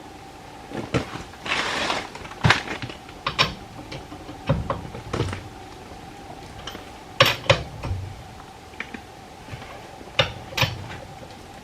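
Metal tools clinking and knocking against metal parts in irregular, sharp strikes, as with wrench work while tightening hardware, over a faint steady hum.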